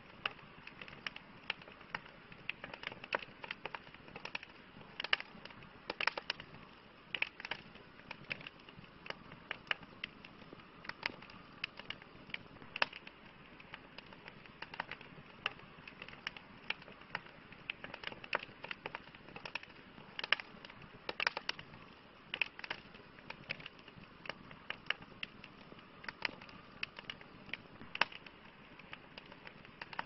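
Wood campfire crackling: irregular sharp pops and snaps, several a second, over a steady soft hiss of burning logs.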